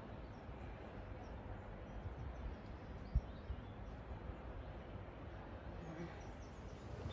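Outdoor background noise with a low, uneven rumble and faint scattered bird chirps; a single short knock about three seconds in.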